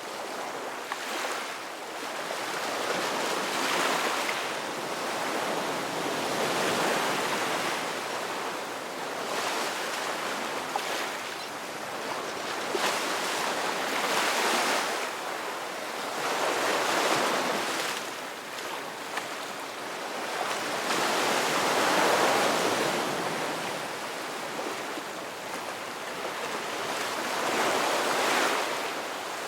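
Ocean waves breaking and washing on the shore. The surf swells and eases every few seconds in a steady rhythm.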